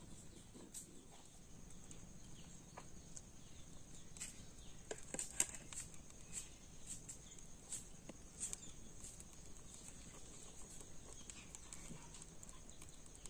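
Faint, scattered clicks and light taps, the sharpest about five seconds in, over a steady high-pitched background hiss.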